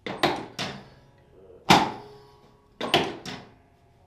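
Drop sections of a chiropractic drop table snapping down under the chiropractor's thrust: a series of sharp clunks, about six, each with a short ringing after it, the loudest about a second and a half in.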